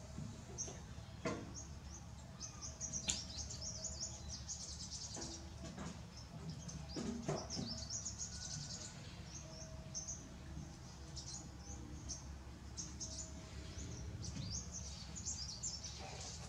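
Small birds chirping and twittering steadily in quick high notes, with a few soft taps in the first half.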